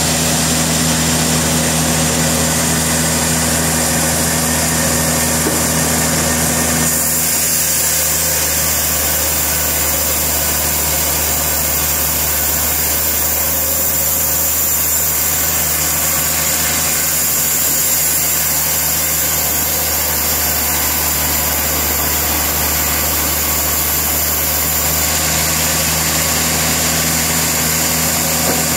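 Portable sawmill running steadily with its engine going throughout. About seven seconds in the engine note shifts and a high hiss strengthens, and both settle back near the end.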